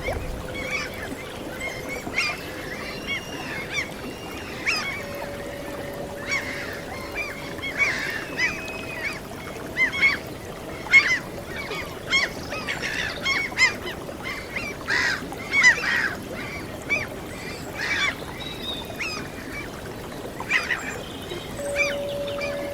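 A flock of gulls calling over and over in short, overlapping squawks, with a soft, long-held flute-like tone underneath that steps up in pitch a few times.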